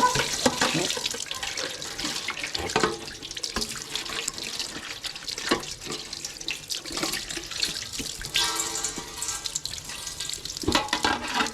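Water running and splashing steadily, with repeated sharp knocks and clatter.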